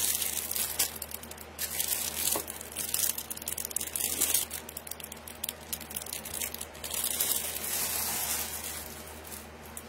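Crinkling and rustling of packaging in irregular bursts, with small clicks, as a piece of jewelry is unwrapped by hand.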